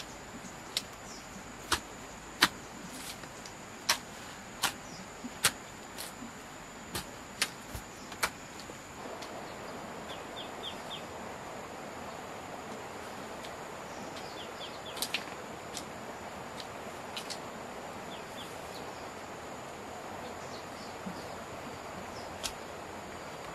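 A series of sharp strikes, about one a second, for the first eight seconds, then a steady rustling or scraping noise with a few faint high chirps. A steady high-pitched insect drone runs underneath.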